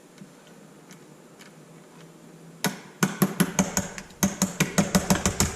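A hammer tapping a suspension shaft out of a Traxxas X-Maxx RC truck's rear end: a quick run of sharp taps, about five or six a second, that starts a little over two and a half seconds in.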